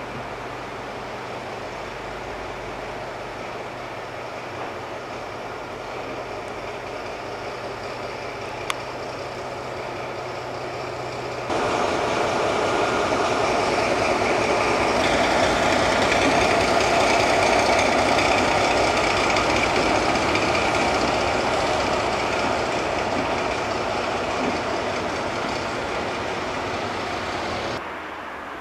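DR class 118 (V 180) diesel-hydraulic locomotive running: a steady low engine hum at first, then, a little over a third of the way in, much louder engine noise as it comes close, swelling to a peak and slowly easing off before dropping away suddenly near the end. A single sharp click is heard about a third of the way in.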